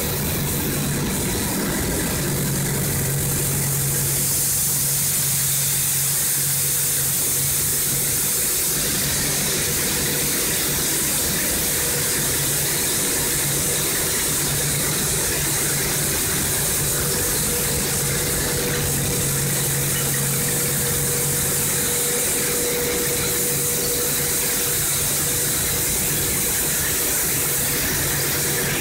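PE plastic recycling machine running steadily: a constant machine hum with a strong, even hiss as plastic granules are blown through a stainless pipe into the feed hopper.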